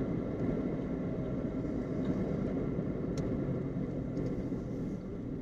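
Steady low rumble of a running engine, with a few faint steady whining tones above it.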